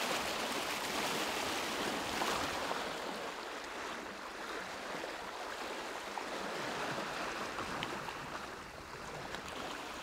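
Water rushing and splashing along the hull of a sailboat under sail, a steady hiss that eases slightly after a few seconds.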